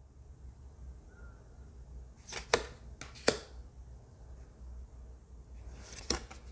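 Linestrider Tarot cards being flipped through by hand: a few quiet, sharp card clicks and slides as each card is moved off the front of the deck. There are two around two and a half seconds in, one at about three seconds, and another pair near the end, over a low room hum.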